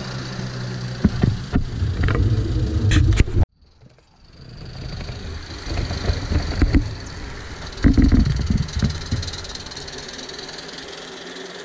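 Small live-steam model locomotive and its carriages running along the garden railway track: a low rumble with scattered clicks. It cuts off abruptly a few seconds in, then builds up again with a louder stretch about eight seconds in before settling lower.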